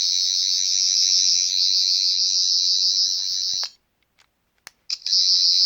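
13th Doctor sonic screwdriver toy playing its electronic sonic sound effect through its small speaker: a loud, high-pitched warbling buzz that cuts off suddenly a little before four seconds in and starts again about a second later, with a few sharp clicks in the gap.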